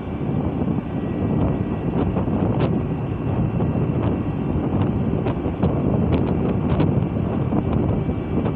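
Wind buffeting the microphone: a steady low rumble that flutters in loudness, with a few faint clicks.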